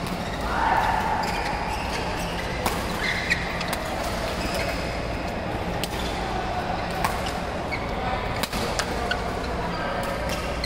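Badminton rackets hitting shuttlecocks: sharp, scattered pops from several games at once, over a steady hall din. There is a brief louder sound about a second in.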